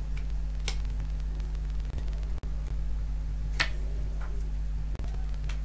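Two quick snapping flicks, about a second in and again past halfway, as single playing cards are flicked off the top of a deck and sent spinning in a boomerang throw. Under them runs a steady low electrical hum with hiss.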